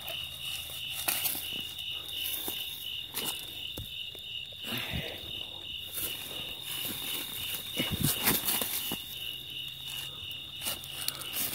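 Crickets trilling steadily, a high pulsing chirp about four times a second. Over it come scattered rustles and knocks of someone moving through dry grass and leaves, loudest about eight seconds in.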